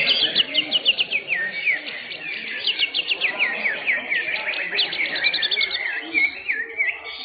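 Several caged greater green leafbirds (cucak hijau) singing at once in competition. Their songs are fast runs of chirps and quick downward-sweeping whistles that overlap one another without a break.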